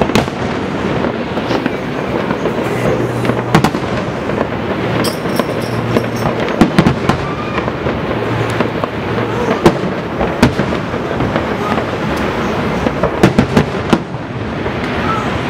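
Fireworks display going off: a continuous rumble of explosions with frequent sharp cracks, several of the loudest about 3.5, 7, 10 and 13 seconds in.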